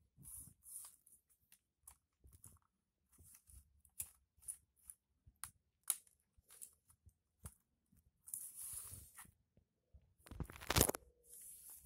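Keys on an Axio Pico netbook's keyboard clicking and rattling as hands press across it, scattered single clicks. Toward the end come rustling scrapes, with the loudest, a rough scrape, about ten seconds in.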